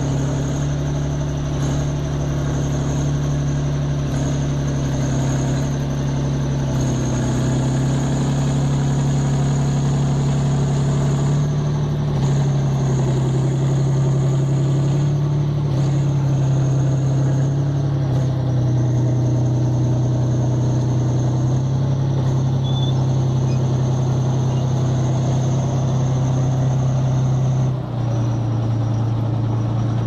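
Crawler tractor engine running steadily while the machine wades through deep water: a low drone with a thin high whine above it. The pitch shifts up and down a few times and steps down near the end.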